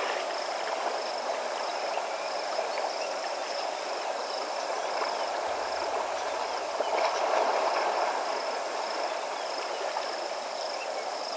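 River water flowing steadily, swelling briefly about seven seconds in, with an insect's thin, high, steady trill over it.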